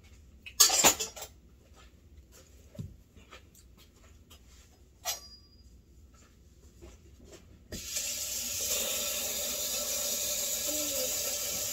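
Kitchen tap running water into the sink for about four seconds, starting past the middle and running on to the end. Before it, a few scattered knocks and clicks of kitchen work, the loudest a sharp knock about a second in.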